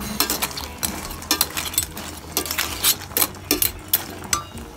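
A ladle stirring clams in a boiling metal pot: shells clink against each other and the pot in quick, irregular clicks.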